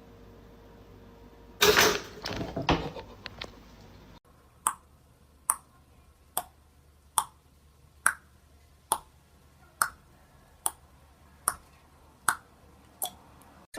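A short noisy clatter, then a run of about eleven sharp, evenly spaced clicks, a little under a second apart, each with a brief ping.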